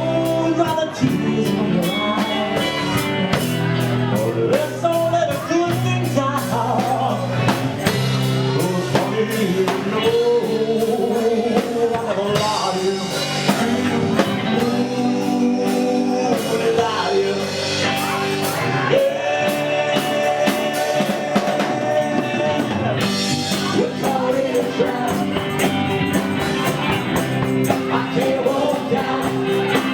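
Live rock band playing a song: a lead vocal sung over a steady drum and cymbal beat and amplified band instruments.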